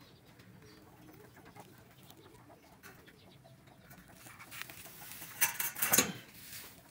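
Birds and chickens calling faintly in the background. Near the end come two sharp knocks, about half a second apart.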